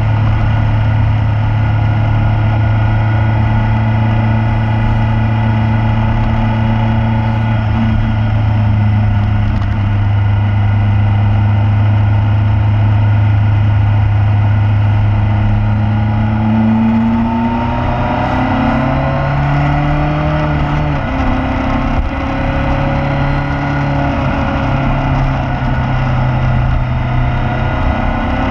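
Motorcycle engine running steadily at road speed, with wind and road noise. About two-thirds of the way in, its pitch starts rising and falling as the throttle and gears change.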